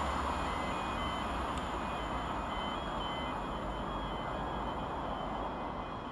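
Steady low rumble of a Class 158 diesel multiple unit approaching from a distance, with a string of short high beeps during the first three seconds or so.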